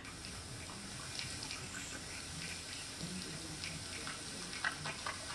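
Recorded foley rain sound effect played back: a steady water-like hiss with scattered small ticks.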